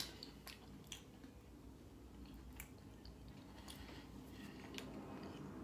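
Faint, quiet chewing of a breaded jalapeño popper, with a few small, sharp clicks from the mouth scattered through.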